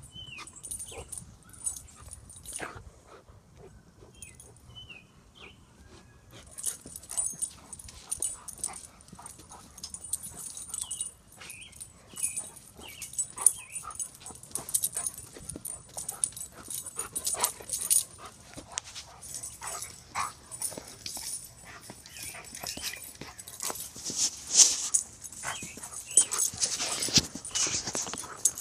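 A goldendoodle and an English springer spaniel play-wrestling: short whimpers and yips amid constant scuffling and rustling, getting busier and louder towards the end.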